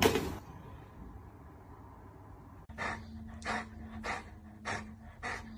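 A dog gives one sharp snort-like breath, then breathes heavily in a steady rhythm, about one breath every 0.6 seconds, over a faint steady hum.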